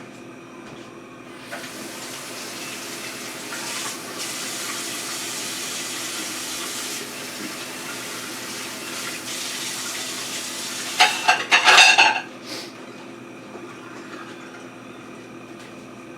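Bite-sized chicken thigh pieces sizzling in hot oil in a pot as they brown: a steady hiss that starts a couple of seconds in. About eleven seconds in there is a short, loud clatter of a utensil against the pot.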